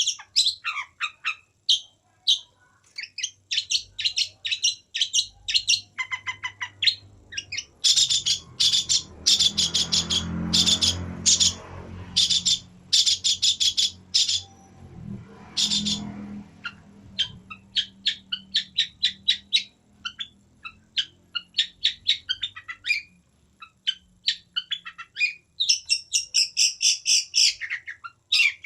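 Long-tailed shrike (pentet) singing long runs of quick, varied chirps and trills. A low rumble sits underneath in the middle stretch, swelling twice, about ten and sixteen seconds in.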